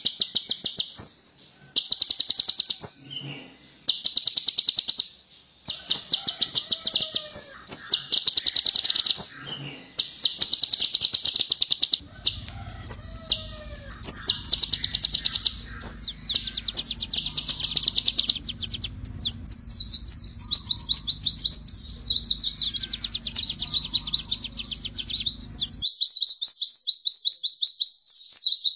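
Kolibri ninja (konin), a small sunbird, singing: very rapid, high-pitched trills in bursts of about a second with short gaps, running into a near-continuous fast twittering chatter in the second half.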